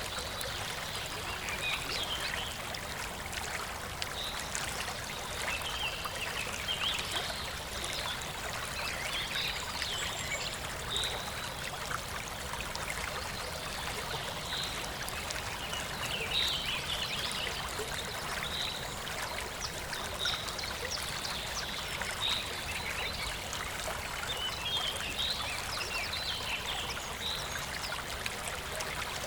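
A small stream of running water, with birds chirping over it again and again.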